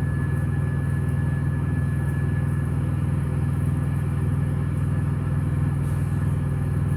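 Semi-truck diesel engine idling, a steady low rumble with an even beat, with a faint steady high whine over it.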